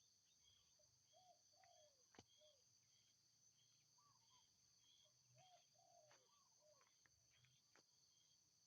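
Faint outdoor countryside sound: insects drone steadily at a high pitch while birds give short arched calls in little groups, with quick chirps above them. Two sharp clicks stand out, the louder one about two seconds in.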